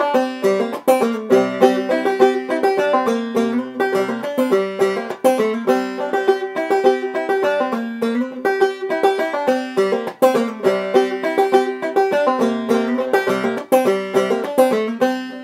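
Clawhammer banjo playing an old-time tune solo, a steady, even run of quick plucked notes.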